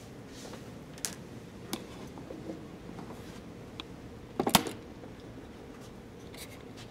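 Quiet room tone with a few light clicks, the loudest a short cluster a bit past four seconds in.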